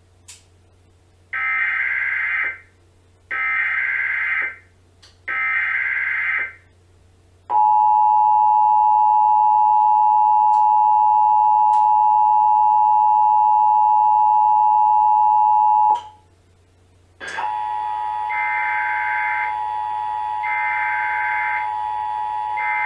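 Emergency Alert System header: three short bursts of SAME digital data screech, then the two-tone attention signal, a steady loud tone held about eight seconds that cuts off abruptly. About a second later a second sequence starts: a steady tone with three more short data bursts sounding over it.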